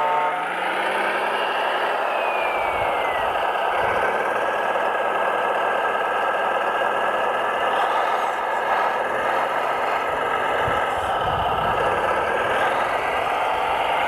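Radio-controlled scale construction machines running, with a steady diesel engine sound from their sound modules. A high whine falls in pitch about two seconds in, and low knocks come around three seconds in and again near eleven seconds.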